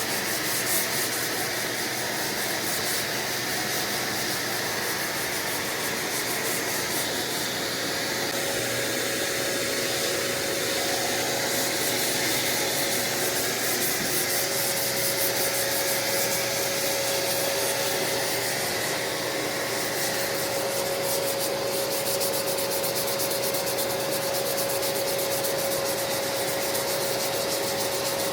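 Hand block-sanding a car fender with 150-grit sandpaper: steady, continuous scratchy rubbing strokes. A faint steady hum joins in about eight seconds in.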